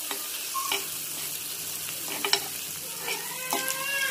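Sliced onions sizzling in ghee on a tawa, stirred with a metal spoon that clinks and scrapes against the pan several times.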